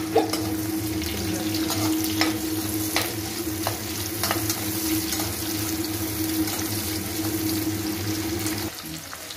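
Sliced onions sizzling in hot oil in an aluminium kadai while a slotted metal spatula stirs them, with scattered clicks and scrapes of the spatula against the pan. A steady low hum runs underneath, and the sound quietens near the end.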